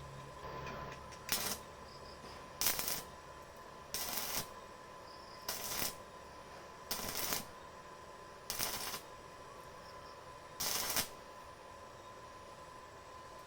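Hand tool rasping on the steel of an old saw blade, in seven separate strokes about a second and a half apart, each under half a second long.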